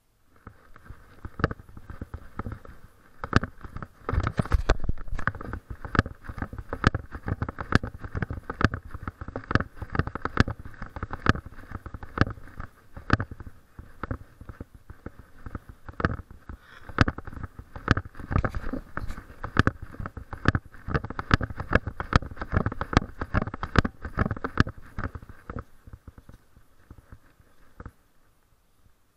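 Footsteps on a concrete sidewalk together with the knocking and rubbing of a body-worn camera as the walker moves: a steady run of short knocks and scuffs. It dies away near the end when the walk stops.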